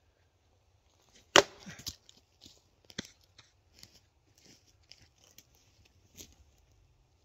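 A heavy machete chopping into wood: one hard strike about a second and a half in, a lighter one about three seconds in and a smaller one near the end, with crunching and crackling between.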